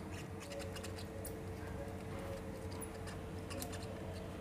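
Hot air rework gun blowing steadily on the ECM board to melt the solder holding the capacitor card: a low, even hum with a constant tone, and a few faint ticks scattered through it.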